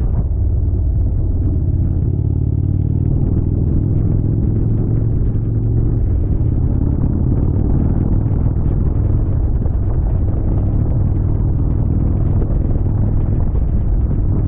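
Indian Chieftain motorcycle's V-twin engine running steadily at riding speed, a constant low rumble with road and wind noise over it.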